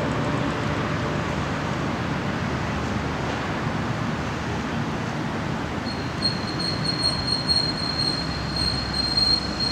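Steady city traffic rumble. About six seconds in, a high, steady squeal sets in and holds.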